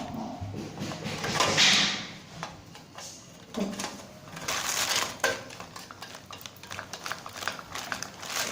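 Metal clinking, rattling and scraping as ceiling fan parts and screws are handled and fitted together, in irregular bursts.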